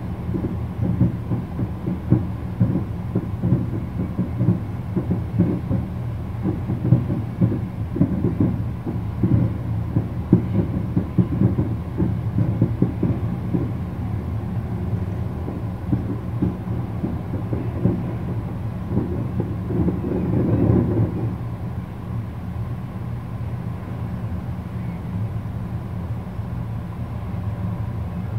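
Distant aerial fireworks shells bursting in quick succession, a dense run of low booms and rumbling that swells about twenty seconds in, then eases to a quieter steady rumble.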